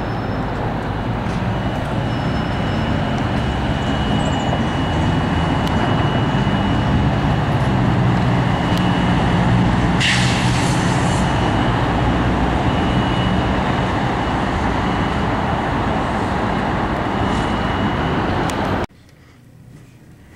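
Steady motor-vehicle noise, a low engine rumble with road noise and a thin high whine over it, with a brief sharper sound about halfway through. It cuts off abruptly near the end.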